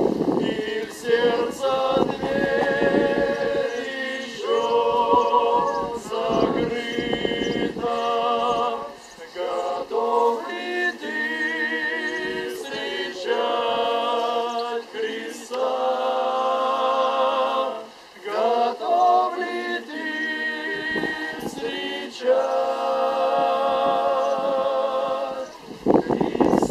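A choir singing a slow song without accompaniment: long held notes with vibrato in several voices, in phrases separated by short breaths.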